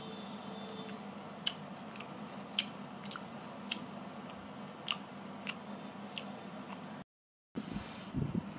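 Close-up chewing of roast duck: mouth sounds with sharp crunchy clicks about once a second. It breaks off briefly near the end, followed by a low handling rumble.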